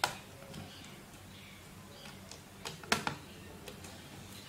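A few short, sharp clicks and taps of a Phillips screwdriver and small screws on the laptop's metal heat-sink mounts as the last heat-sink screw comes out. One click comes right at the start and a small cluster about three seconds in, the loudest of them.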